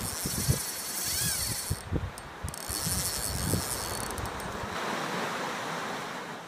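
Steady rushing noise of wind and sea water, with a few low thumps and a brief whistling glide, fading down near the end.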